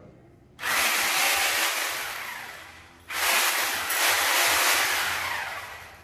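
Corded angle grinder run twice in quick succession: each time it starts suddenly with a loud, hissing whir and then dies away over a couple of seconds.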